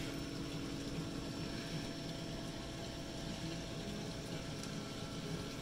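Steady hum and water noise of an aquarium wall's filtration, pumps running and water circulating through the fish tanks, with a few faint steady tones in the hum.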